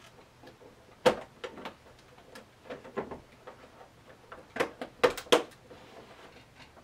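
Knocks and taps of a 3D-printed PLA plastic case lid being turned and set down on the case: a sharp knock about a second in, scattered lighter taps, then a cluster of three or four knocks around five seconds in.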